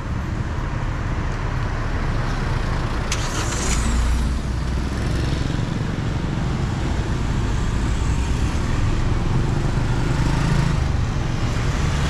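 Street traffic: vehicle engines running and passing with a steady low rumble. There is a brief sharp click about three seconds in.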